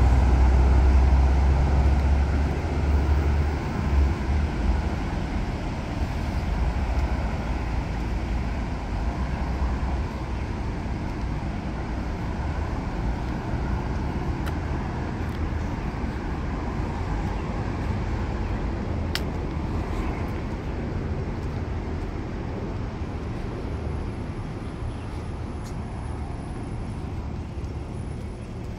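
Steady road traffic noise with a low rumble, loudest at the start and slowly fading away, with a single sharp click about two-thirds of the way through.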